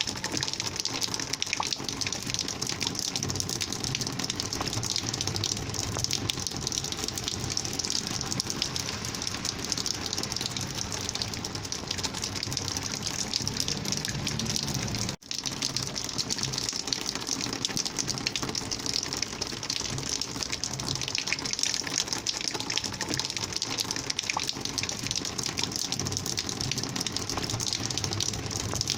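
Rainwater flowing in a steady, gushing rush, with a momentary dropout about halfway through.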